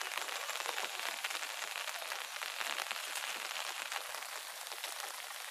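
Steady pattering of light rain, a dense crackling hiss of drops with no single loud event.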